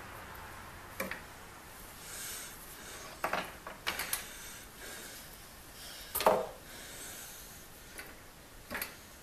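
Iron blacksmith shear being lifted out of a plastic bucket of baking-soda electrolysis solution and lowered back in. It knocks and clatters against the bucket rim and the steel anode several times, the loudest knock a little past the middle, with light splashing of the solution in between.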